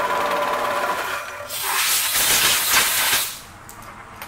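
Milling machine spindle running with a steady whine that fades out about a second in, then a compressed-air blow gun hisses loudly for nearly two seconds, blowing metal chips off the part and rotary table, and cuts off sharply.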